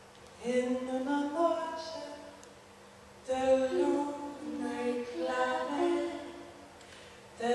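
Two female voices singing a cappella, without instruments, in two sustained phrases separated by a short pause, with a new phrase beginning near the end.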